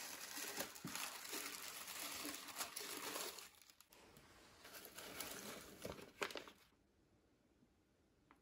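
Tissue paper crinkling and rustling as it is folded back inside a cardboard box, then after a short lull a second burst of rustling from the packing as the wrapped parcel is lifted out, stopping about two-thirds of the way through.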